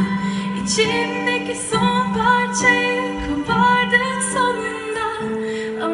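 A woman singing a song live with a band, over long held low notes that change about every two seconds.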